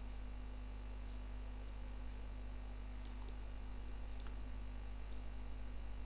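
Steady electrical mains hum on the recording, with a few faint clicks about three to four seconds in.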